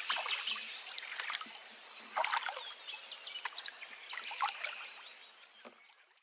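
Outdoor ambience of scattered short chirps and light splashing water, fading out near the end.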